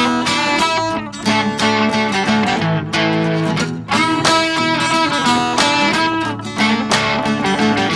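Background music: a strummed guitar track with a steady rhythm.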